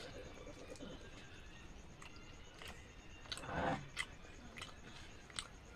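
Close-up eating sounds of gulgula, sweet fried dough balls: chewing with scattered wet mouth clicks and smacks. About three and a half seconds in there is a brief, louder vocal sound.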